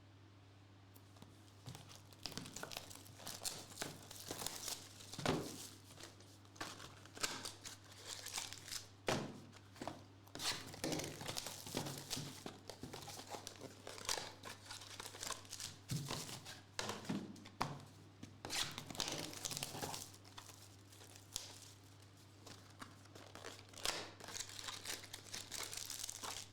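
Foil trading-card pack wrappers being torn open and crinkled, in many quick irregular rips and rustles, over a steady low electrical hum.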